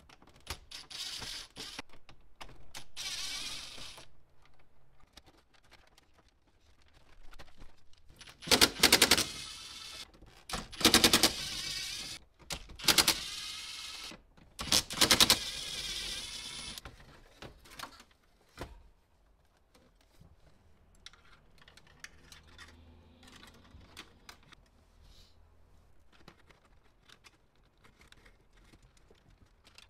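Ridgid 18V cordless impact driver with a 10 mm socket on a long extension, hammering in four short bursts about a second apart as it runs out the four bolts holding the dash radio. Softer clicks and rattles follow near the end as the loosened radio and its wiring are handled.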